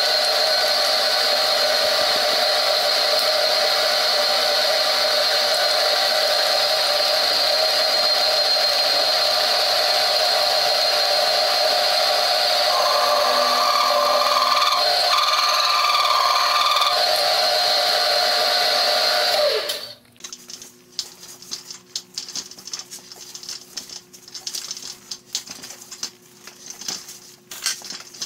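Metal lathe running with a steady whine, a higher tone joining in for a few seconds past the middle. The lathe sound stops abruptly about two-thirds through, followed by irregular metallic clicks and scraping from a hand die stock cutting a thread on a steel bar held in a vise.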